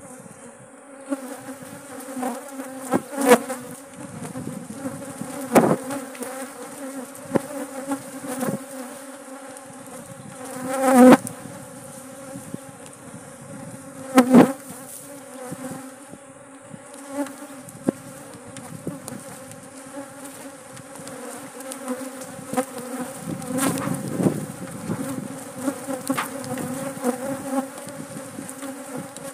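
Honeybees buzzing in a steady swarm around their hive, with single bees flying close past the microphone several times, each a brief loud swell of buzzing. It is a colony the beekeeper calls very aggressive.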